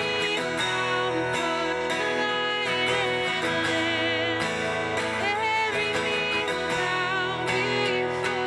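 A woman singing a song to her own strummed acoustic guitar, her sustained notes held with vibrato over an even strum.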